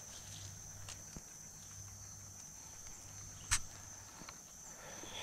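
Steady high-pitched buzz of insects in woodland, with one sharp click about three and a half seconds in and a few fainter ticks.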